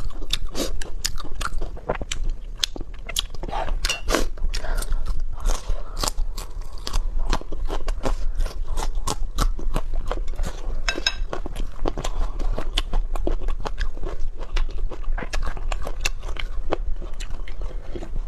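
A person biting and chewing food, with rapid crunches and wet mouth clicks coming several times a second throughout.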